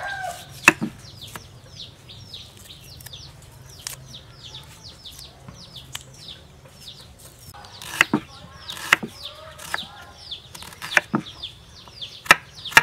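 Knife cutting red shallots on a wooden cutting board: sharp knocks of the blade on the board, one loud one about a second in and a quick series in the last five seconds. Behind them, birds chirp steadily with rapid, high, falling notes.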